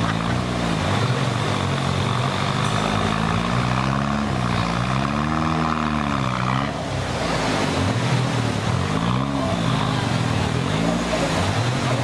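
Off-road 4x4 competition vehicle's engine revving up and down in repeated swells as it crawls up a steep muddy bank, with one long rise and fall in the middle and shorter quick blips near the end.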